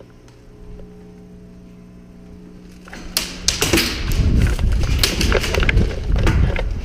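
A faint steady hum for about three seconds, then a dense, irregular run of thumps, knocks and clicks from a player moving with his gear during an indoor airsoft round.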